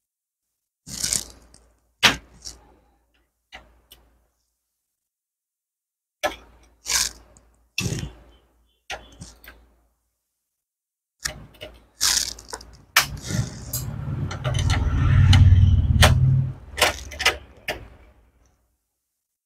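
Screwdriver clicking and scraping on the screws and sheet-metal chassis as a laser printer's controller board is unscrewed: short separate clicks with pauses between. About thirteen seconds in comes a louder few seconds of handling and rattling.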